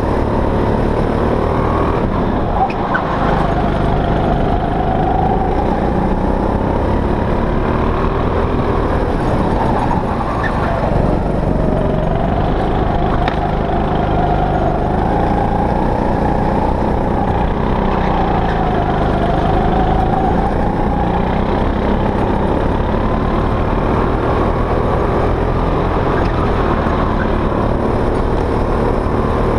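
Go-kart engine heard close up from on board the kart, running hard with its revs repeatedly rising along the straights and falling into the corners.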